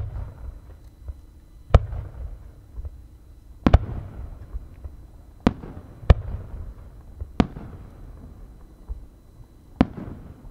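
Fireworks display: about eight sharp bangs of aerial shells going off at uneven intervals, one a quick double, each followed by a low rumbling echo.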